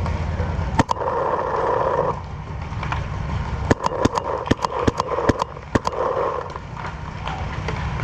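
Paintball markers firing: one shot about a second in, then a rapid string of about ten shots over two seconds, with a low rumble on the microphone that stops just before the string.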